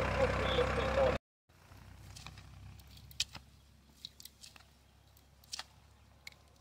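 Tractor engine running, cutting off abruptly about a second in. After it comes a faint low hum with a few scattered sharp clicks and ticks.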